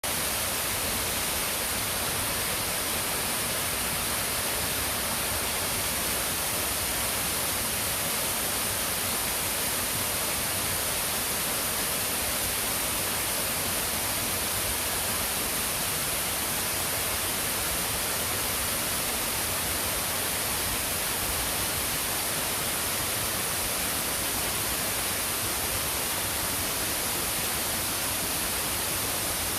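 Waterfall rushing: a steady, unbroken hiss of falling water that never changes, strongest in the high treble.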